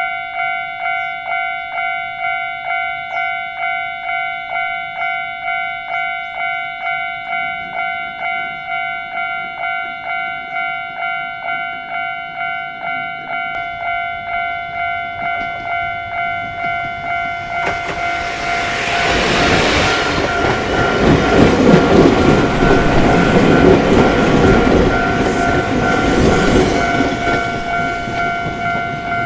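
Japanese level-crossing warning bell ringing about one and a half strikes a second. About eighteen seconds in, a Sangi Railway train passes over the crossing, its wheels clattering on the rails, louder than the bell.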